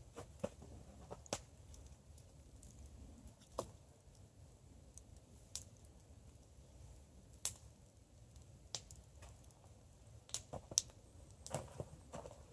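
Wood campfire crackling, with sharp pops at irregular intervals every second or so. Near the end, footsteps crunching in snow.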